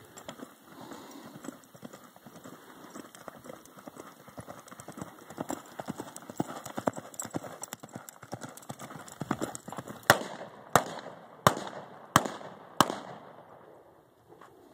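Horse's hoofbeats loping on arena sand. Then, about ten seconds in, five sharp gunshots come about two-thirds of a second apart, typical of a mounted shooter firing blank rounds at balloon targets.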